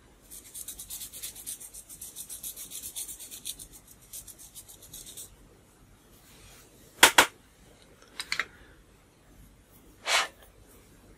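A coloured pencil being sharpened: the tip is rubbed back and forth in quick, even rasping strokes for about five seconds. Then come a loud double click, a fainter double click and a single click near the end.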